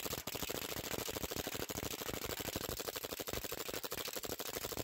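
Airsoft gas-blowback Glock 18 on compressed air firing a long full-auto string from a drum magazine: a rapid, even stream of sharp clicks.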